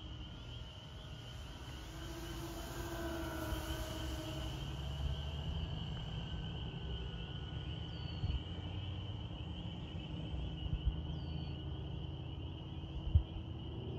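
Remote-control B-25 Mitchell model's twin electric motors and propellers whining faintly as it flies past, loudest a few seconds in. A steady high-pitched buzz and a low rumble of wind on the microphone lie underneath, with a sharp knock near the end.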